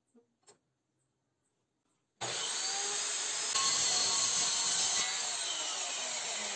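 A few faint taps, then about two seconds in a power tool starts working wood abruptly: a loud, steady, harsh noise with a faint wavering whine in it.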